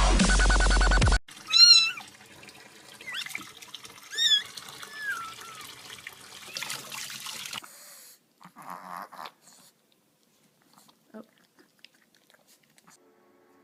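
Dubstep music cuts off about a second in. A kitten then meows about four times, high and sliding in pitch, over a faint hiss of running water from a sink tap.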